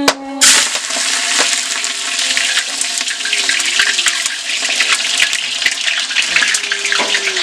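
Chopped onions dropped into hot mustard oil in a large pot, starting a sudden loud sizzle about half a second in that carries on as a steady crackling hiss.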